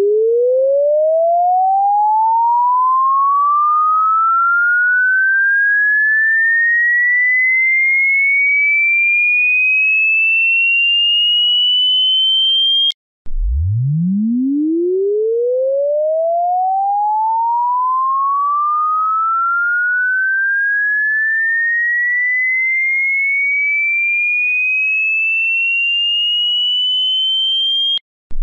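An electronic pure tone sweeping steadily upward in pitch, from a low hum to a high whistle. It cuts off suddenly about thirteen seconds in, then starts again from the bottom and rises the same way until it cuts off just before the end.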